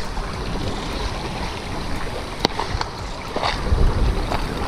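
Steady rushing outdoor noise, with one sharp click about halfway through and a few low thumps near the end.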